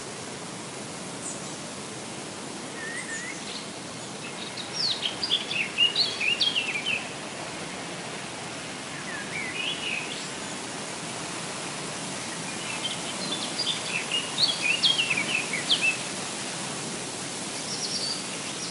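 A songbird singing two rapid, varied song phrases of about three seconds each, some eight seconds apart, with a few shorter notes between them, over a steady background hiss.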